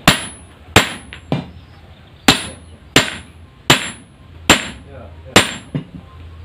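Hand hammer striking a heavy steel machine part, metal on metal. There are seven sharp blows at roughly one every three-quarters of a second, each with a short high ring, and two lighter taps in between.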